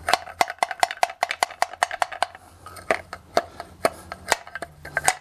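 Quick, light ball-peen hammer taps on the cast-iron pulley housing of a drill press head, about four sharp metallic knocks a second with a short ring after each, easing off briefly in the middle. This is the tapping used to work the pulley shaft assembly loose from the housing.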